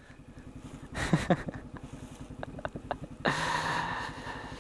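Sanya X50 110cc motorcycle engine running at low speed over a dirt track, a low, evenly pulsing rumble. A few light clicks come about halfway through, and a louder stretch of engine and rushing noise lasts under a second just past three seconds in.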